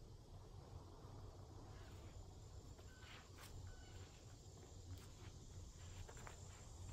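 Quiet footsteps on a dirt woodland trail, with soft crunches and clicks of leaf litter and twigs underfoot from about three seconds in, over a low steady rumble.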